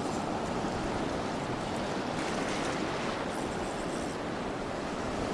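Ocean surf breaking and washing up a sandy beach: a steady rushing of waves and foam.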